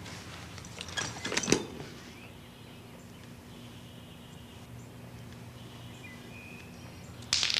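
A few light clicks and knocks of small wooden game pieces being handled, then quiet room tone with a few faint high chirps, and a sudden rustling burst near the end.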